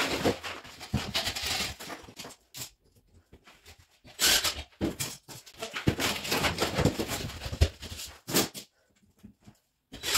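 Drywall pieces scraping and rustling as they are shuffled and slid over a floor strewn with plaster debris, in several irregular bursts with short pauses.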